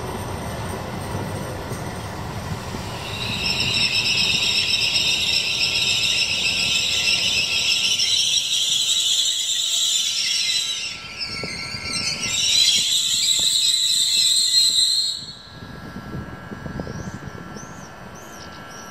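Trenitalia Rock double-deck electric multiple unit moving slowly past, its wheels squealing on the rails: a loud, high-pitched squeal of several tones at once. It sets in about three seconds in over a low rumble, wavers briefly near the middle, and cuts off abruptly about fifteen seconds in.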